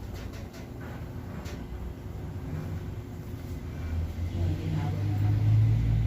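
Low, engine-like rumble that swells toward the end, with a few faint clicks in the first second and a half.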